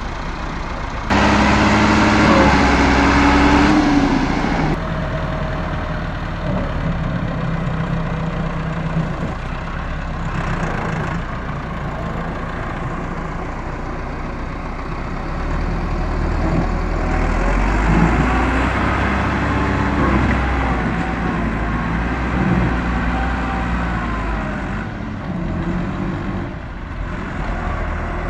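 Massey Ferguson 385 tractor's four-cylinder diesel engine working its front loader through mud, running continuously with its pitch and load changing. A sudden louder stretch starts about a second in and lasts about four seconds, and a heavier low rumble comes about halfway through.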